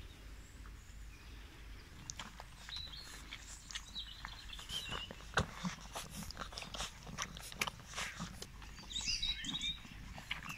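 Airedale Terrier puppies suckling and jostling at their standing mother's teats: faint smacking and clicking, with a few brief high squeaks about three seconds in and again near the end.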